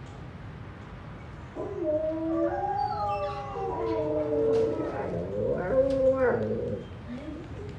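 Alaskan malamute howling: one long call, starting about a second and a half in, that rises and falls in pitch and trails off near the end.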